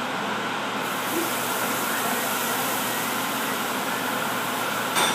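Steady hissing noise, its highest part coming in abruptly about a second in, with a single click near the end.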